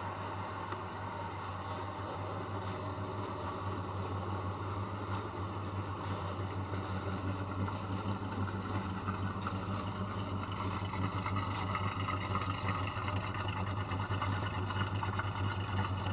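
A 1978 Chrysler New Yorker Brougham's 440 V8 idling steadily. The engine note holds an even pitch and grows louder toward the end as the rear of the car and the exhaust come near.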